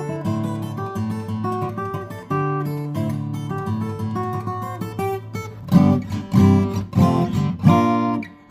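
Crafter Mind W2000 acoustic guitar being played: picked melody notes over held bass notes, changing about two thirds of the way through to loud strummed chords.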